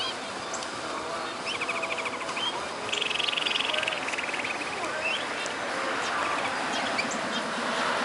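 Canary singing: scattered chirps, a rapid chattering trill about a second and a half in, then a faster, denser trill lasting about a second, over steady background noise.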